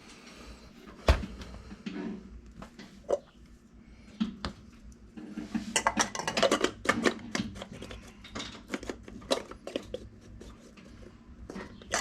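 Metal tools and parts clinking and clattering, irregular clicks and knocks with one sharp knock about a second in and a busy run of clicks in the middle.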